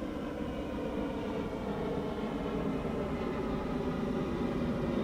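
Steady mechanical drone: a low rumble with a layered hum over it, slowly growing a little louder.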